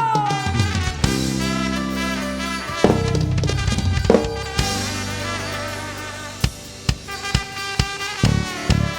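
Live church band's drum kit and bass guitar playing, heard through an in-ear monitor mix. Long held bass notes come first; from about six seconds in, separate drum hits come faster toward the end.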